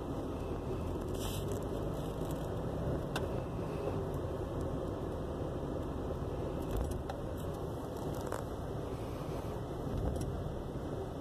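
A Jeep Cherokee XJ's 4.0-litre straight-six idling roughly, with an uneven, choppy beat, along with a few light clicks and rattles. The owner describes it as running like it's only on four cylinders, the misfire that also sets a flashing check engine light.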